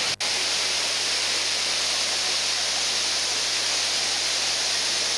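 Waterfall water rushing and cascading over rock steps, a steady hiss that briefly drops out just after the start.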